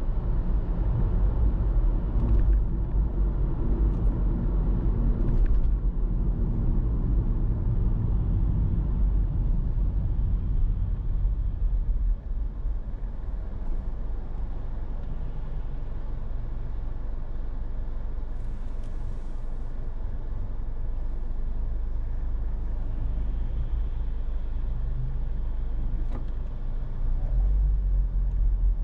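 Car being driven on city streets: a steady low rumble of engine and tyre noise that eases off about twelve seconds in and grows again near the end.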